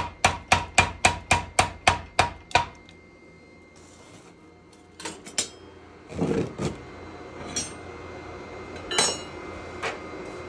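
Hammer blows ringing on forge-hot steel, an even run of about ten strikes, three to four a second, that stops about two and a half seconds in. After that come scattered, quieter clinks and knocks of metal tools being set down and handled.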